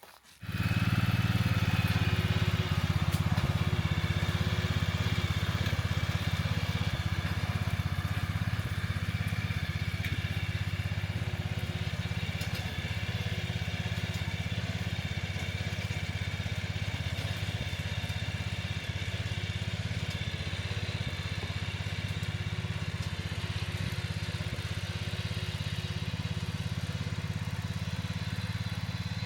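An engine running steadily at a constant speed, coming in suddenly just after the start.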